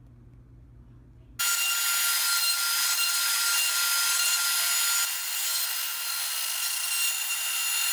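A faint low hum, then the wood router on a CNC machine starts abruptly about a second and a half in. It runs at high speed with a steady whine as its bit cuts into wood, and dips a little in level partway through.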